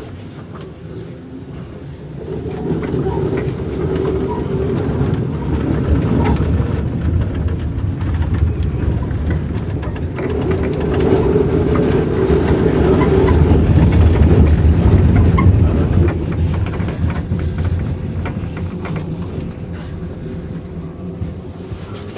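Škoda 15T ForCity tram running along the track, heard from inside the driver's cab. The running noise builds over the first couple of seconds, is loudest past the middle, and eases off near the end.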